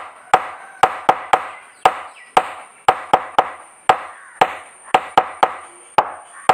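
Sharp knocks in a repeating rhythm, a quick group of three followed by single knocks, each ringing briefly. A faint steady high-pitched tone sounds underneath.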